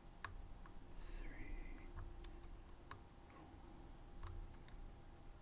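Faint, irregular clicks and ticks of a lock pick working the pin stack of a Medeco M3 high-security lock, with a short squeaky scrape of metal a little over a second in.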